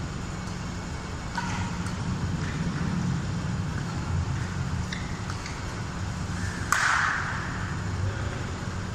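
Badminton rally: racket strings striking a shuttlecock in a series of sharp pops, the loudest a hard hit about seven seconds in. A steady low hum runs underneath.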